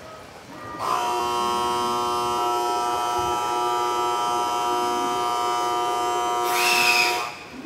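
Electronic departure bell on a railway platform ringing steadily, several fixed tones sounding together. It starts about a second in, has a brief louder, hissier burst near the end, and cuts off suddenly.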